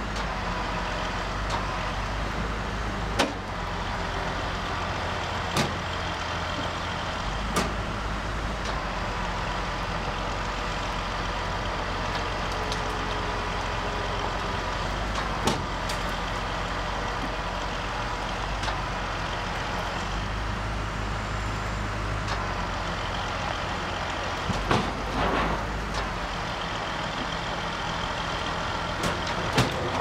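Heavy wrecker trucks' diesel engines running steadily as their booms lower a concrete truck onto its wheels, with a few short, sharp knocks scattered through.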